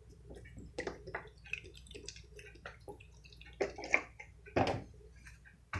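Chicken stock poured into a pan of canned green beans, liquid splashing and dripping in short bursts, with a louder splash about four and a half seconds in.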